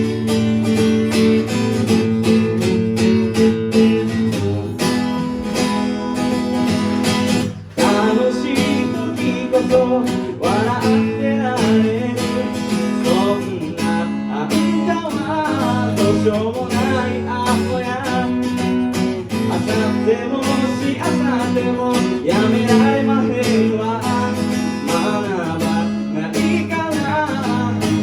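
Live song on strummed acoustic guitar, with a sung melody coming in after a brief break about eight seconds in.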